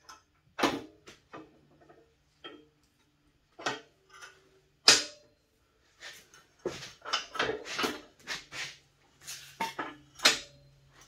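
Steel lift arms of a MaxJax M6K garage lift clanking and clicking as they are swung and pushed by hand on their pivots, metal knocking on metal in irregular strikes, busiest in the second half.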